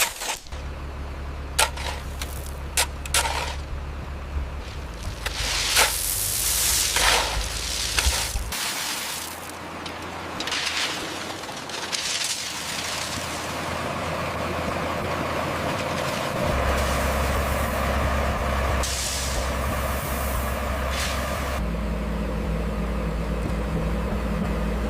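Heavy road-construction vehicle engine running with a low rumble, broken by repeated short hissing bursts in the first half and a steadier hiss later.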